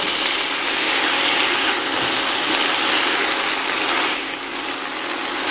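Silicone spatula stirring and tossing idli pieces and vegetables in a nonstick kadai, scraping against the pan, over the steady sizzle of the food frying in oil.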